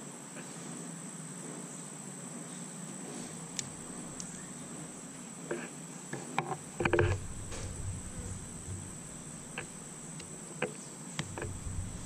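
Steady high chirring of crickets, with a few small sharp clicks and one louder knock about seven seconds in as the metal multitool is handled against the glasses.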